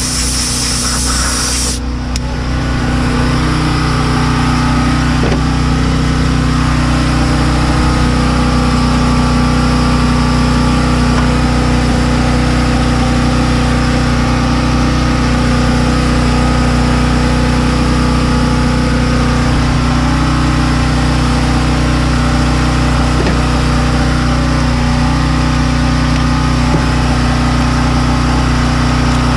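An engine idling steadily, a constant low hum that does not change. For the first couple of seconds a spray hiss runs over it and then cuts off suddenly.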